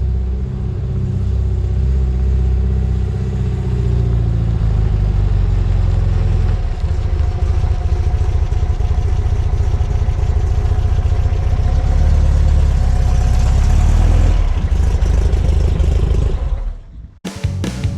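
A VW bus engine runs steadily with a loud low rumble, which becomes rougher from about seven seconds in. It cuts out near the end, and music begins.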